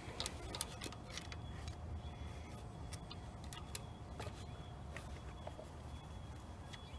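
Faint, scattered metal clicks and ticks as a hand and tool work the cap off the governor gear shaft inside an open 212cc Predator crankcase, over a low steady hum.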